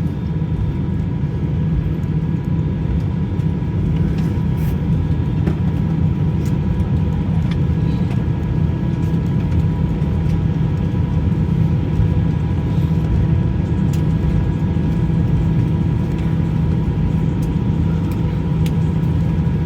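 Jet airliner cabin noise while taxiing after landing, heard from inside the cabin: a steady low rumble with a constant faint whine from the engines.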